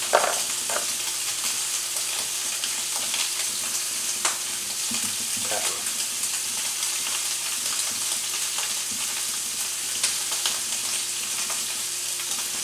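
Beef short ribs searing in butter in a cast iron skillet on high heat: a steady sizzle with scattered sharp pops.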